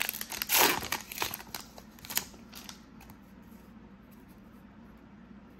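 Trading-card pack wrapper being crinkled and torn open: a quick series of sharp rustles and crackles over the first three seconds, loudest about half a second in, then only faint handling.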